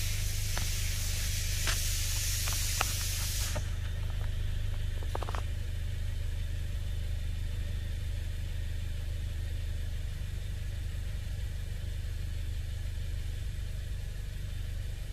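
A steady low hum, with a high hiss over it that cuts off suddenly about three and a half seconds in. A few faint clicks come while the hiss lasts, and a short buzz follows about five seconds in.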